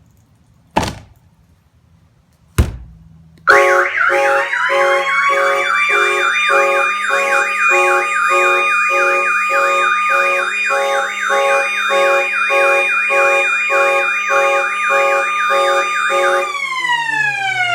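Old Chapman car alarm going off: its mechanical siren winds up quickly to a loud, steady wail while the car horn sounds in short blasts about twice a second. Near the end the horn stops and the siren winds down, falling in pitch. Two sharp clicks come before it starts.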